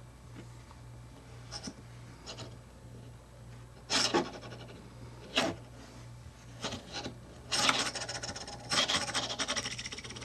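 Small cylinder neodymium magnets and fingertips scraping and clicking against a paper-covered ceramic ring magnet and the tabletop as the magnets are slid and pushed around the ring: a few short scrapes, the loudest about four seconds in, then a longer rattling scrape near the end.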